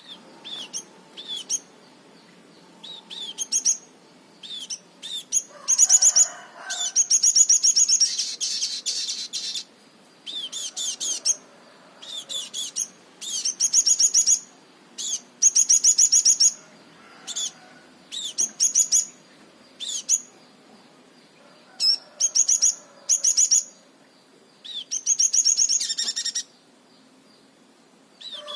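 A caged sogon, the brown-throated sunbird, singing in short bursts of fast, high-pitched stuttering trills, one after another with brief pauses. These are the rapid-fire 'tembakan' phrases that bird keepers prize.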